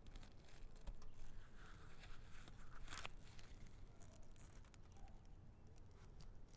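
Faint rustling of dry succulent leaves and potting soil under gloved hands, with small clicks and one sharper click about three seconds in as the Fiskars pruning snips work on an echeveria stem.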